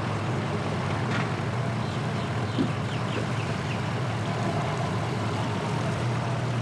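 A motor engine running steadily under a general outdoor haze. There are a few faint short high chirps, and a brief knock comes about two and a half seconds in.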